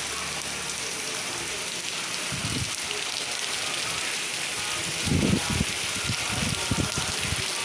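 Heavy rain falling on a cobbled street, a steady hiss, with a few short low bumps about two and a half seconds in and a cluster of them from about five seconds.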